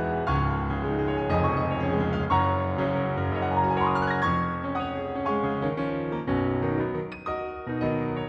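Garritan CFX virtual piano (sampled Yamaha CFX concert grand) playing a slow ballad arrangement: a melody over chords, notes struck one after another without a break.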